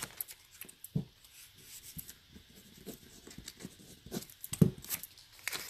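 Scattered small clicks, taps and rubbing sounds of hands handling small objects close to the microphone, with a sharper knock about four and a half seconds in.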